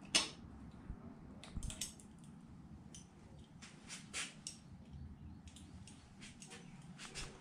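Scattered small clicks and light metallic rattles of a bicycle being handled and adjusted by hand in a repair stand, the sharpest click about a quarter second in.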